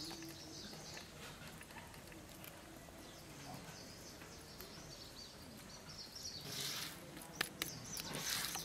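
Fingers scraping ground spice paste off a stone grinding slab and its stone roller, heard as two short rasping scrapes near the end, with faint birdsong in the background.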